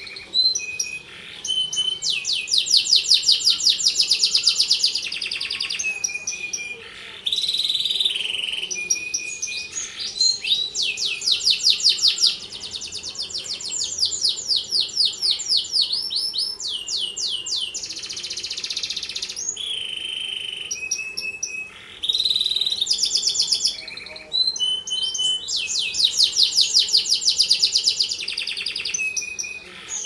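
Domestic canary singing a long, varied song of fast trilled rolls, with short whistled notes and brief pauses between phrases.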